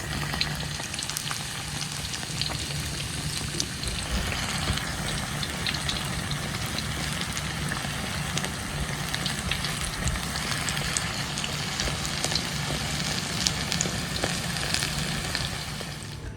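Banana fritters deep-frying in hot oil: a steady sizzle with many small crackles and pops, growing a little fuller about four seconds in.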